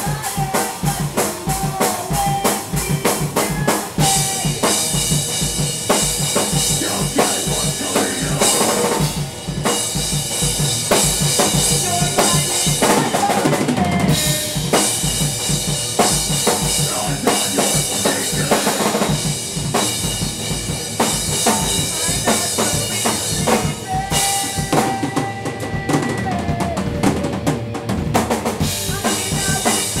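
Live band playing loud, heavy rock in a small room: a drum kit pounding with rapid bass-drum strokes and crashing cymbals under distorted electric guitars, with a vocalist singing into a microphone.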